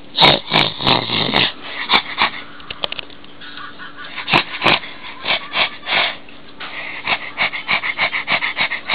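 Whippet puppy snuffling and sniffing right at the microphone: a string of short, irregular breathy puffs, a cluster at the start and a quicker run through the second half.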